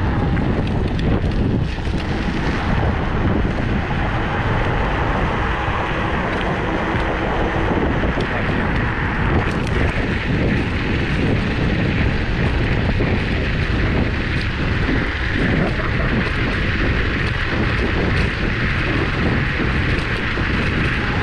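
Steady wind rushing over the microphone and a low rumble from a Kaabo Mantis electric scooter riding at speed along a paved path.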